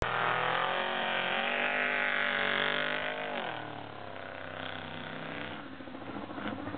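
Off-road desert race truck accelerating away from the start line, its engine revving loudly at a high, steady pitch. About three seconds in the engine note falls sharply, then it fades as the truck pulls away down the course.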